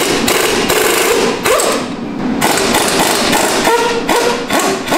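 Air impact wrench firing in a quick series of short bursts, about ten in all, on the front suspension and hub fasteners.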